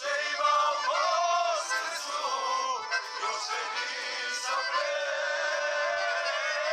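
Accordion playing a lively folk tune while a group of people sing along loudly.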